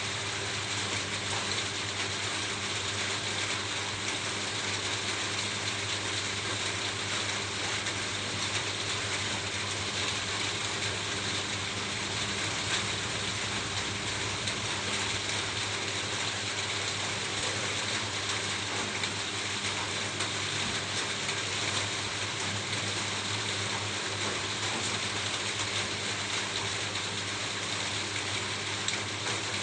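Steady rain falling on a roof: an even, dense patter of drops with no let-up, over a faint steady low hum.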